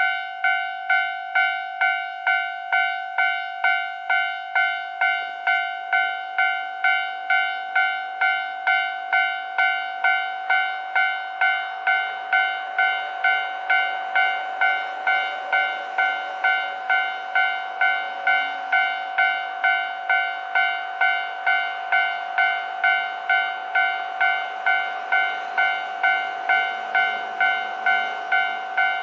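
Japanese railway level-crossing warning bell ringing steadily, an even run of electronic dings at about one and a half a second, sounding for an approaching train. A faint noise grows beneath the bell from about halfway through.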